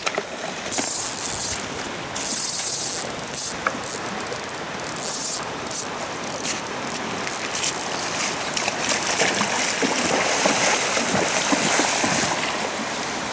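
Fly reel clicking as a hooked salmon takes line and is reeled in, over the steady rush of a fast river. Waders splash through the shallows toward the end.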